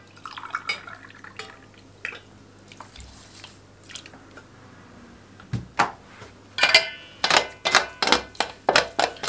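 Boiling water poured from a glass onto fine bulgur in a metal tray, splashing and trickling softly. About five and a half seconds in, a metal spoon starts stirring, knocking and scraping sharply against the tray two or three times a second.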